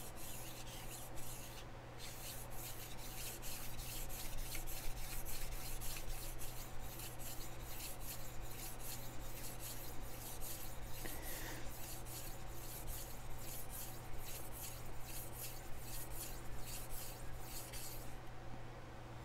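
Steel chef knife blade being stroked back and forth over a Chosera whetstone in a steady rhythm of rasping strokes, about two to three a second, stopping near the end.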